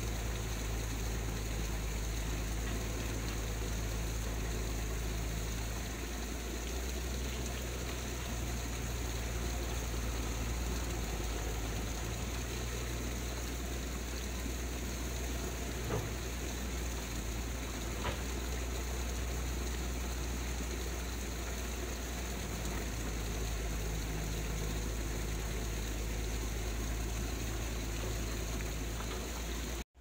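Steady rushing of a muddy stream flowing over and around rocks, with a deep low rumble underneath. Two faint ticks come about midway, a couple of seconds apart.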